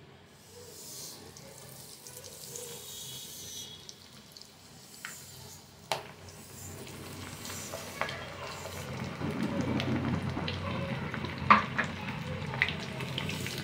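Breaded chicken drumsticks going into hot oil in a wok for deep-frying: the oil sizzles and bubbles, getting louder from about eight seconds in as more pieces fry. A few sharp clicks and one louder knock near the end.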